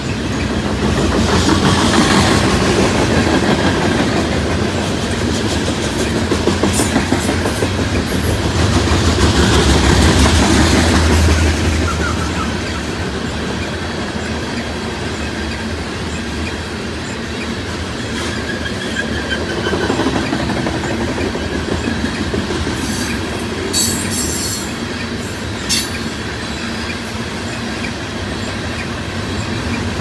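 Loaded coal train cars rolling past: the steady rumble and rattle of steel wheels on the rails, swelling twice in the first half. A few sharp high clicks come from the wheels and rails about two-thirds of the way through.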